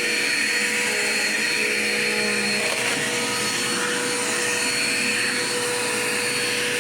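Dirt Devil Quick Power vacuum cleaner running steadily as it picks up scraps of paper from the floor.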